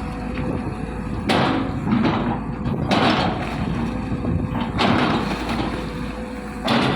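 Excavator's diesel engine running steadily with a faint steady whine, broken about every two seconds by a loud, harsh burst of noise, four in all, as the machine works.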